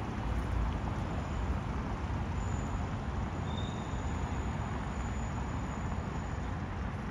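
Outdoor street ambience: a steady rumble of road traffic, with a brief faint high chirp about halfway through.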